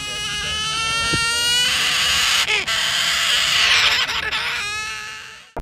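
One long, loud animal cry. It starts as a clear held note, turns harsh and raspy in the middle, and goes clear again before cutting off just before the end.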